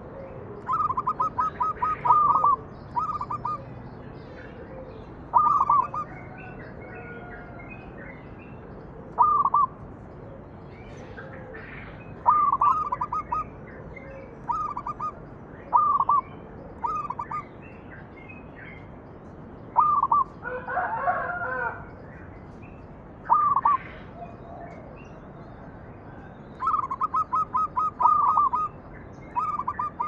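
Zebra dove (perkutut) cooing: short phrases of quick, staccato coos, repeated every few seconds. Another bird gives a longer, harsher call about two-thirds of the way through.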